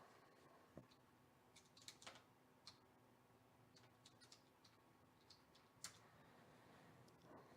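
Faint, irregular clicks of a computer keyboard and mouse in near silence, spaced a fraction of a second to a second apart.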